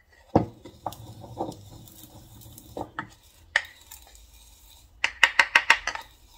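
Wooden pestle pounding and grinding sesame seeds in a wooden mortar: a solid knock about half a second in, scattered taps and scraping, then a fast run of about eight sharp clicks in a second near the end.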